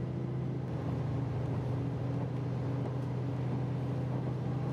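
KiHa 261 series diesel railcar running, heard from inside the passenger cabin: a steady low engine hum over the rumble of the train on the rails.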